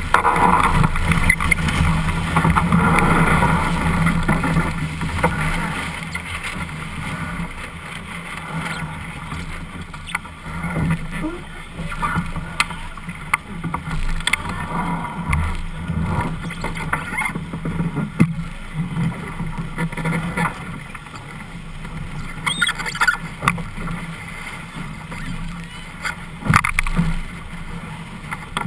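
Water rushing and splashing along the hull of a Melges 24 racing sailboat under way, with wind buffeting the microphone. It is loudest in the first few seconds, and a few sharp knocks come later on.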